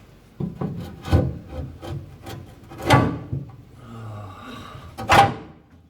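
Metal clunks and scraping as an exhaust extractor is worked loose from under a car, with three louder knocks about one, three and five seconds in.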